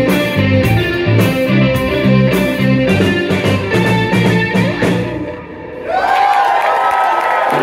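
Live band playing an upbeat instrumental led by electric guitar, with bass, drum kit and percussion in a steady groove. The music drops away about five seconds in as the song ends, and the audience cheers and whoops.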